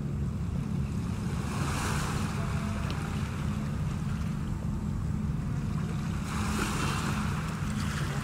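Wind on the microphone: a steady low rumble, with two stronger gusts of hiss about two seconds in and again about six seconds in.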